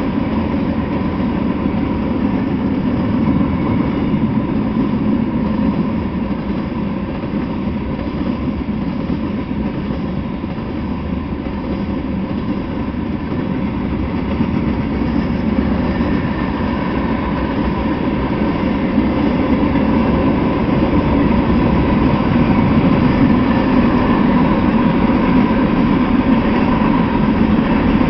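Freight train cars rolling past on steel rails: a steady rumble of wheels on track with a faint steady whine, growing a little louder in the second half.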